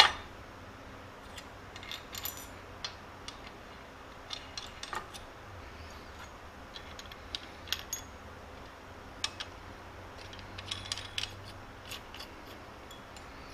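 Scattered small metallic clinks and ticks as a steel nut is threaded by hand onto a clamp stud and the strap clamp and washer knock against each other, with a sharper clank right at the start.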